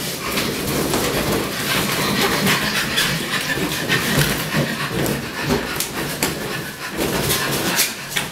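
Rubber party balloons being knocked about, bumping against each other and a wooden floor in many short knocks, with a toddler's squeals and laughter mixed in.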